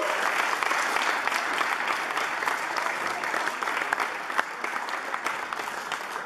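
A crowd applauding, many hands clapping together, the applause slowly dying down towards the end.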